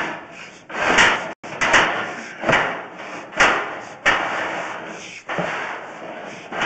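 Sewer inspection camera's push cable being shoved down a 4-inch cast iron drain in quick strokes: a sudden knock and scrape about every second, each trailing off in a rasping hiss.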